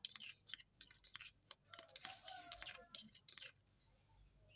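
Metal spoon stirring and scraping a thick, wet bait paste in a plastic cup: a quick run of soft clicks and scrapes that dies away about three and a half seconds in.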